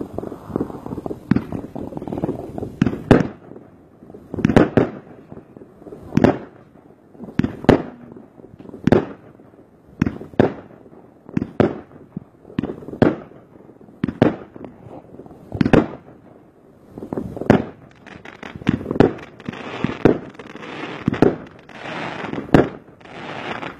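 Aerial fireworks bursting overhead: a steady string of sharp bangs, roughly one every second and a half, with a denser crackle of small bursts in the last few seconds.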